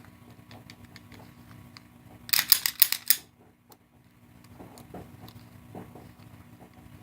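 Para 1911 pistol being handled: a quick cluster of sharp metallic clacks about two seconds in, with faint clicks and rustling around it.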